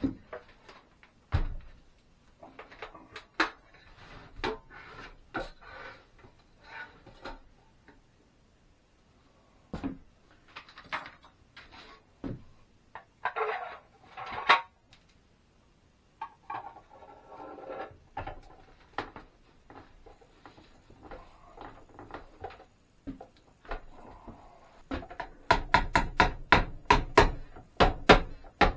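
Scattered clanks, clicks and scrapes of a metal gallon paint can and its lid being handled and opened. Near the end comes a quick run of hammer taps, about three a second, as a lid is tapped down onto the can.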